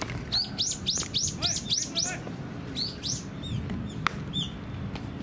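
A bird calling in a quick run of short high chirps, about four a second, then a few more scattered chirps. A single sharp click about four seconds in.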